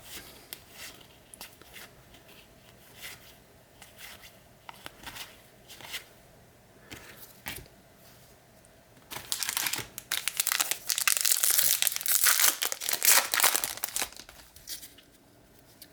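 Baseball cards ticking and sliding softly against each other for the first several seconds. Then, about nine seconds in, a trading-card pack's wrapper is torn open and crinkled loudly for about six seconds.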